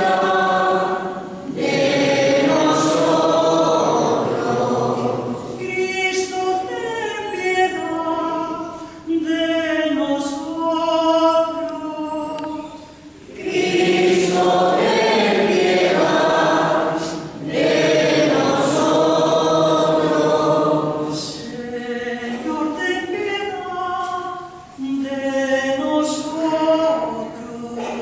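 Small church choir of men and women singing in long sustained phrases, with two brief pauses for breath between verses.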